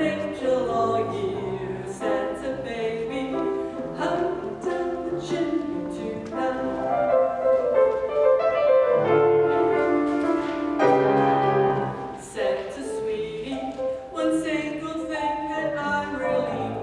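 A woman soloist singing into a hand-held microphone, backed by a choir and piano accompaniment.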